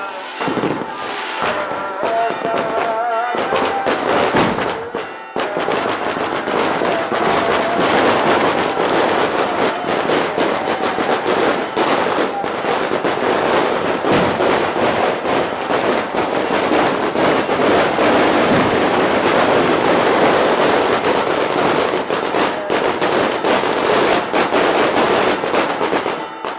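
Fireworks and firecrackers going off in a dense, rapid crackle that becomes near-continuous about five seconds in, with a few pitched tones underneath in the first seconds.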